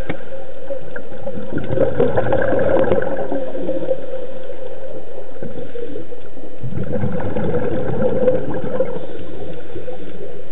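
Water gurgling and bubbling in two bursts, one about a second and a half in and the other about seven seconds in, each lasting around two seconds.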